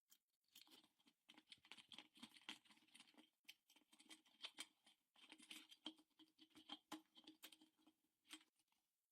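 Quick, dense scratching and scraping strokes, as in hand-scrubbing or scraping a rusty metal toaster part. They pause briefly twice and stop shortly before the end.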